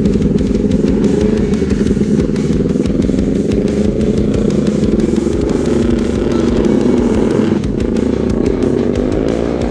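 Several motorcycle engines running together at idle, their pitch wavering up and down with small throttle blips.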